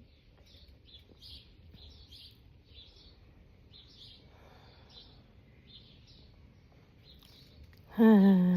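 Starlings chirping over and over in the background. About eight seconds in, a woman gives one loud sneeze, its voiced end falling in pitch.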